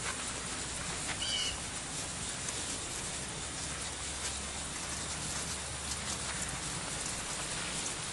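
Steady hiss of outdoor background noise, with a few faint scattered ticks and a brief high chirp about a second in.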